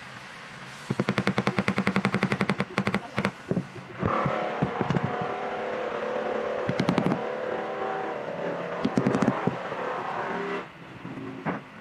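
Fast metallic clicking for about two seconds as steel bar clamps are adjusted on a wooden chair frame. After that a motor drone holds steady for about six seconds, with a few sharp knocks, and stops shortly before the end.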